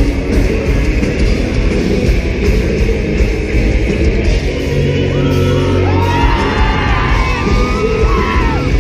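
A pop-punk band playing loud and live, with drums, bass and distorted electric guitar, and voices yelling and singing over it from about halfway through.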